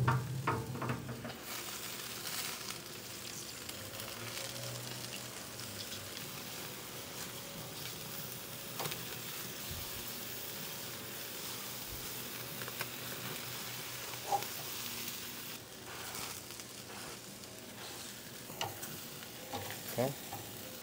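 Veal sweetbreads sizzling on a hot charcoal grill grate, basted with sprayed beef tallow, a steady hiss of fat frying, with a few light clicks of metal tongs as they are turned.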